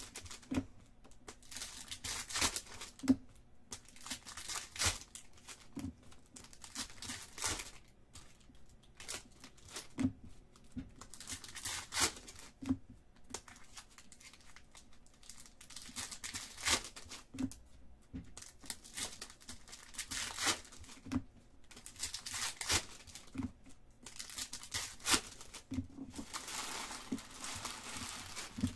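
Foil trading card pack wrappers being torn open and crinkled, with cards handled in between, in repeated bursts every second or two with small knocks.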